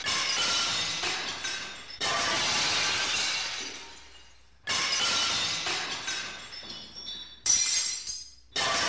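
Glass shattering several times in a row, a new smash every two to three seconds. Each one starts suddenly and trails off in ringing, tinkling pieces.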